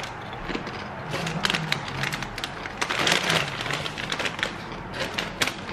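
A crunchy corn chip being bitten and chewed: a fast, irregular run of crisp crunches and cracks.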